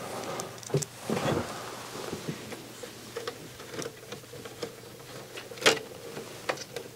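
Small clicks and taps of parts being handled and fitted inside an opened mini hi-fi unit, with one sharper click about six seconds in.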